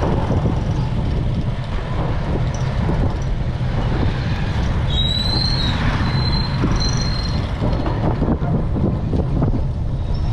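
Steady wind buffeting and rumble on a bicycle-mounted action camera's microphone while riding, with a few brief high chirps about halfway through.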